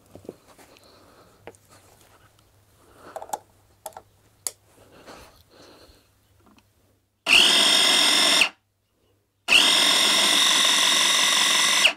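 Kenwood mini food chopper's electric motor run twice by pressing its top button: about a second, then about two and a half seconds, each a steady run with a high whine. The chopper is running after a repair to its drive gear, a washer fitted to keep the gear teeth off the plastic housing. Before the runs, small clicks and knocks of the unit being handled.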